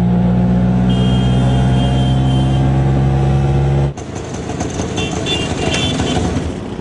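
Auto rickshaw engine running at a steady speed as a steady drone. About four seconds in it cuts to busier street noise with a few short high-pitched beeps.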